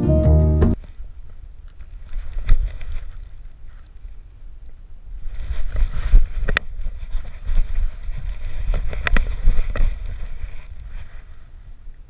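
Wind buffeting the microphone of a GoPro strapped to a dog's chest harness: a low, gusty rumble that swells and fades, with scattered clicks and rustles as the camera jostles while the dog moves. A music track cuts off just under a second in.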